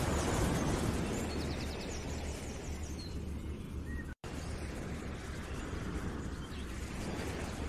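Outdoor nature ambience: a steady noisy background with a low hum and a few short bird chirps. The sound drops out for an instant about four seconds in.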